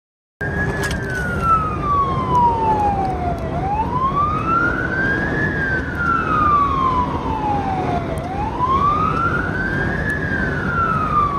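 Emergency vehicle siren on a slow wail, its pitch rising and falling about every four and a half seconds, over steady road rumble inside a moving vehicle.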